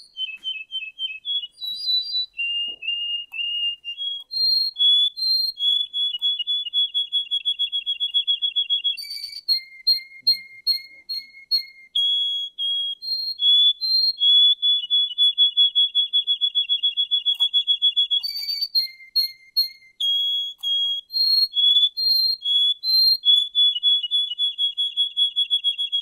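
Russian song canary singing a long, nearly unbroken song. It runs through fast rolling trills and series of repeated notes, switching between higher and lower phrases every few seconds with only short breaks.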